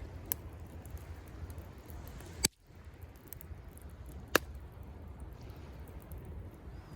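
Wood campfire crackling, with sharp pops, the loudest about two and a half seconds in and another near four and a half seconds, over a steady low rumble.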